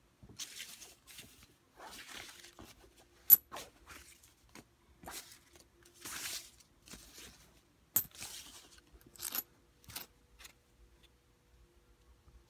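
Paper banknotes rustling and crinkling in short spells as they are handled and shuffled, with a few sharp clicks, the loudest about three seconds in.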